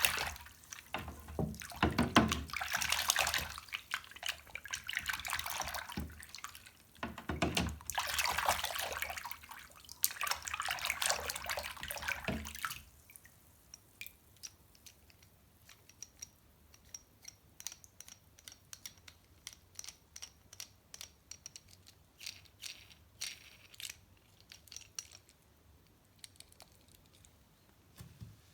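Water from a tap splashing in surges as toy cars are washed under it in a sink, stopping about halfway through; after that, a series of small sharp clicks and taps.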